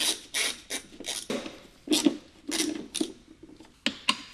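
Hand ratchet turning a bolt, its pawl rasping in short bursts on each back-stroke: about eight strokes at an uneven pace of roughly one every half second.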